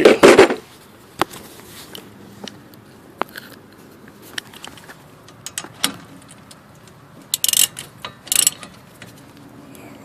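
Socket ratchet clicking as rear brake caliper bolts are run back in, with scattered single metal clicks and taps of tools. There are two short, louder bursts of ratcheting near the end.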